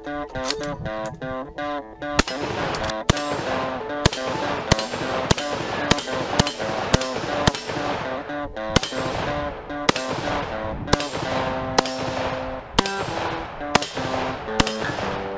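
An AK-pattern rifle firing a rapid string of single shots, about two a second with a couple of short pauses, starting about two seconds in. Background music with plucked guitar-like notes plays underneath.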